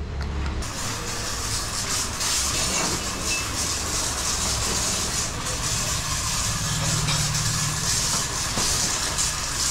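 Motorcycle running with its drive chain and sprockets turning steadily, the chain freshly greased and sprayed and running smoothly without rattling or squeaking.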